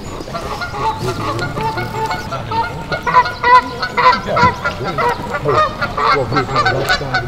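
Geese honking repeatedly, several calls overlapping, busiest in the second half.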